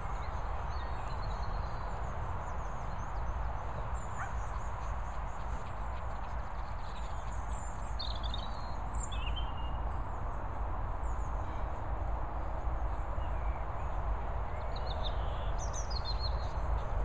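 Steady outdoor background noise with a low rumble, and birds chirping briefly now and then, a few calls around the middle and again near the end.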